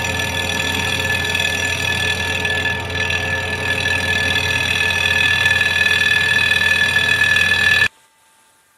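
Vertical milling machine with its rotary head swung around, an end mill cutting along the top edge of a cast aluminium intake manifold to mill it down. The steady machining sound carries several ringing tones, then cuts off abruptly near the end.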